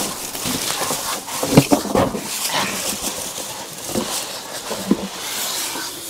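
Cardboard box and styrofoam packing scraping, rubbing and knocking as a portable 12 V fridge-freezer is pulled up out of its box.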